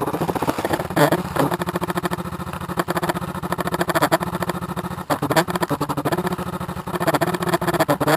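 A crashed drone's electric motors, still powered, giving a steady electrical buzz with a rapid crackle running through it; the buzz drops out briefly twice.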